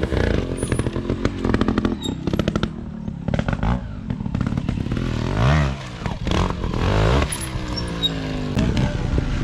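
Trials motorcycle engine revving in short throttle bursts, the pitch rising and falling several times, with sharp clicks and knocks as the bike climbs onto and drops off granite boulders.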